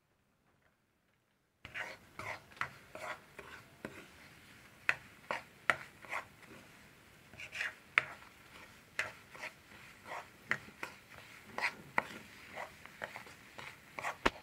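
Metal spoon scraping and clinking against a pan as it stirs and presses a crumbly semolina mixture: short irregular strokes, two or three a second with brief pauses, starting about one and a half seconds in.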